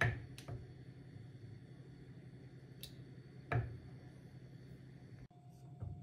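Wooden spatula scooping set homemade yogurt from a rice cooker's inner pot, giving a few sharp knocks against the pot. The loudest comes about three and a half seconds in, over a low steady hum.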